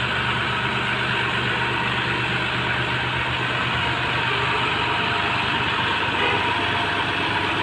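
TAFE tractor's diesel engine running steadily at low revs as the tractor, fitted with a front-end loader, creeps forward.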